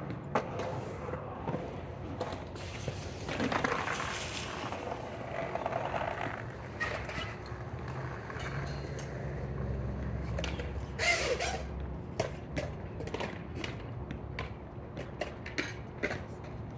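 Skateboard wheels rolling and rumbling on the concrete of a skate bowl after the rider falls off, with a couple of louder scrapes. The rumble dies away about twelve seconds in, followed by scattered knocks and clicks of the board and footsteps on concrete.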